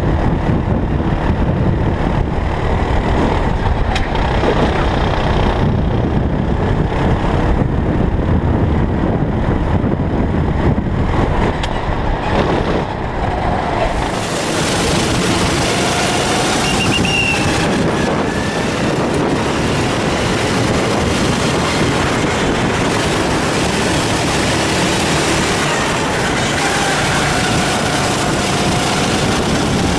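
Onboard sound of a Sodi racing kart at speed: the engine running hard under wind and rushing noise on the microphone. About halfway through the sound shifts to another kart's onboard, thinner, with faint rising and falling engine notes.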